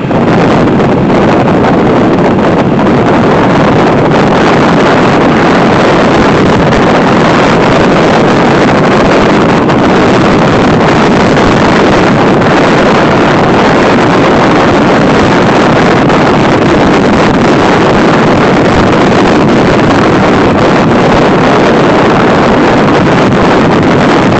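Loud, steady rushing noise of wind and travel on the microphone of a moving vehicle.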